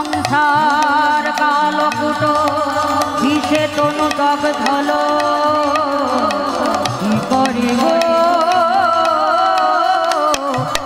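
Devotional kirtan music: a long, wavering melody line with held notes, carried over steady hand-drum strokes.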